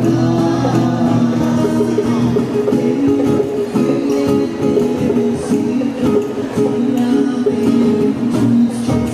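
Live band music with held notes over a steady beat.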